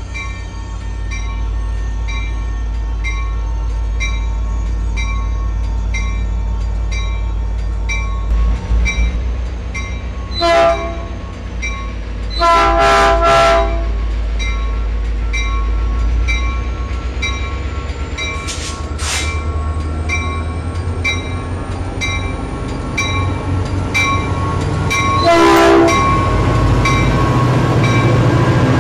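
Caltrain EMD F40PH diesel locomotive rolling past with a bilevel train, its engine rumbling under a bell that rings steadily a little more than once a second. The horn sounds a short blast about a third of the way in, a longer blast just after, and another blast near the end.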